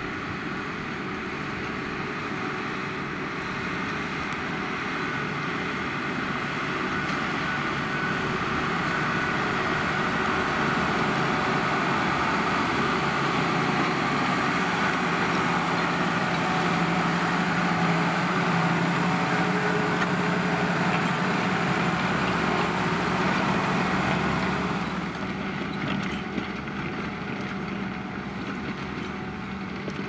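Valtra tractor's diesel engine working steadily under load as it pulls a four-furrow plough through the soil. It gets gradually louder, then drops back suddenly about 25 seconds in.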